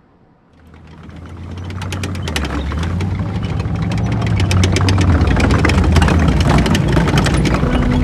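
Heavy vehicle engine rumble with a fast clattering rattle, a sound effect that swells up from near silence over the first few seconds and then holds loud. A few sustained musical notes come in near the end.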